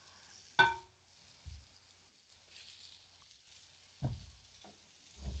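Faint sizzling of chicken frying in a skillet. About half a second in there is one sharp clink that rings briefly, followed by a few soft knocks of cookware being handled.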